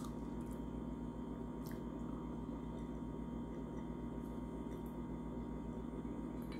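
Steady low room hum with a short click at the start and a few faint ticks.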